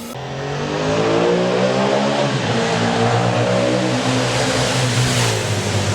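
Yamaha XSR700's 689 cc parallel-twin engine revving up under acceleration: its pitch climbs for about two seconds, drops, then climbs again.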